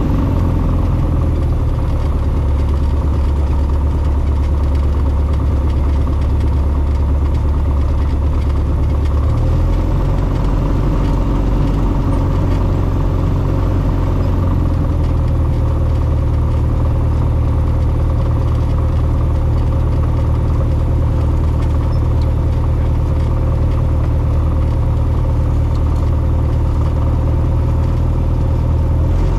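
Carbon Cub FX-3 light aircraft's piston engine and propeller running steadily in flight, heard inside the cockpit as a loud, even drone. Its low note shifts about ten seconds in.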